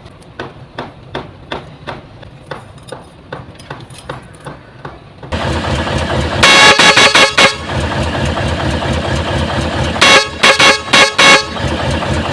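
Vehicle air horn, wired through a newly installed magnetic switch, sounding in two rapid bursts of about five short blasts each, showing that the switch now works. The engine runs underneath, with faint regular ticking at first and much louder from about five seconds in.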